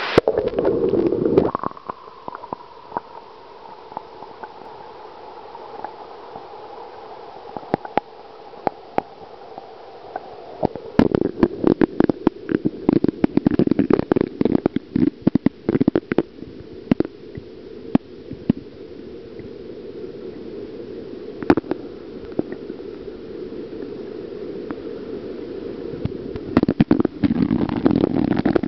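Muffled, steady rush and gurgle of river current heard through a submerged camera, with many sharp clicks and knocks that come in clusters, thickest at the start, from about eleven seconds in, and again near the end.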